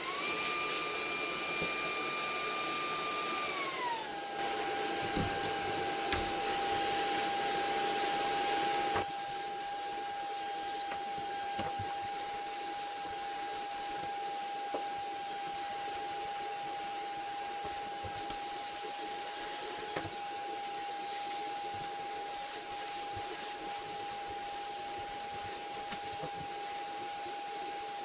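A vacuum cleaner's motor switching on and spinning up to a steady high whine with rushing air, cleaning dust from PC electronics. About four seconds in, the whine drops to a lower steady pitch, and the air hiss gets quieter at around nine seconds.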